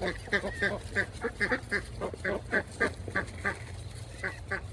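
Mallard-type hen ducks quacking: quick runs of short quacks, about three a second, a brief pause, then a few more near the end.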